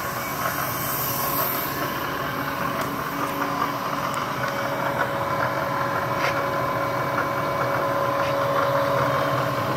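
Bridgeport EZ-Trak CNC knee mill's spindle running at a steady speed: an even machine hum with a steady whine.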